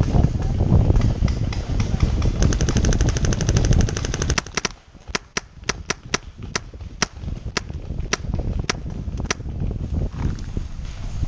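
Paintball markers firing: a fast string of shots for about two seconds, then about ten single shots at roughly two a second.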